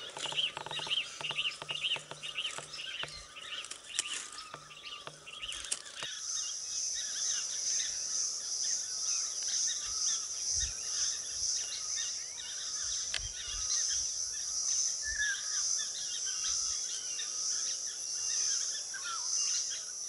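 Birds chirping in quick repeated notes for about the first six seconds. After that comes a steady, pulsing high-pitched insect drone, with scattered bird calls beneath it.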